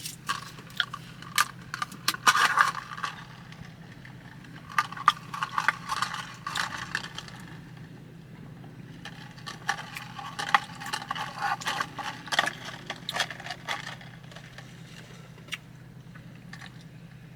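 Plastic drink cup and straw being handled: scattered clicks, scrapes and crinkles in three bouts, with a steady low hum underneath.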